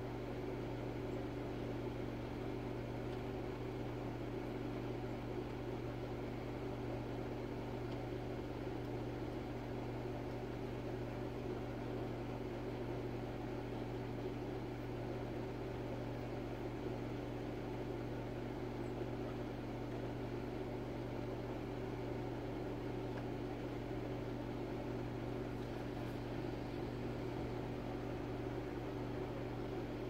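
Steady low machine hum, like a motor or appliance running, holding the same level with no change.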